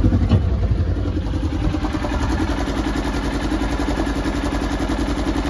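Polaris Ranger 900 XP's twin-cylinder engine idling steadily, just after a cold start; it sounds pretty normal, with no misfire yet.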